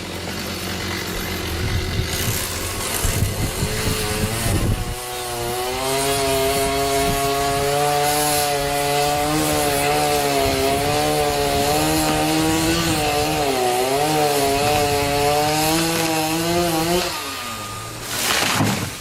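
Chainsaw running at high revs while cutting into wood, its pitch wavering under load, then winding down about seventeen seconds in. An engine idles underneath in the first few seconds, and a loud rushing burst comes just before the end.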